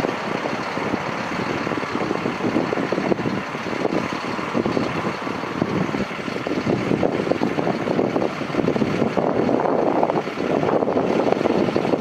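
Air ambulance helicopter in flight just after takeoff: a steady noise of its rotors and turbine engines.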